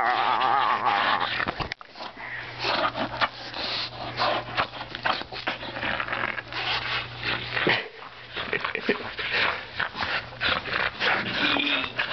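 An English bulldog making breathy, irregular play noises while tugging and shaking a plush toy, with the toy's fabric rustling and thrashing.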